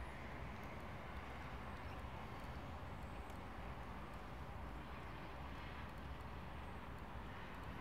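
Steady outdoor city background noise: an even, unbroken hum from the surrounding urban area, with no distinct events.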